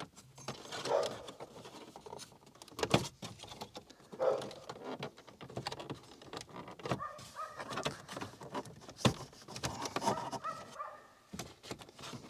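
Plastic dashboard trim panel being pulled loose from its clips by hand: irregular clicks, knocks and creaks of plastic, with a few louder creaking spells.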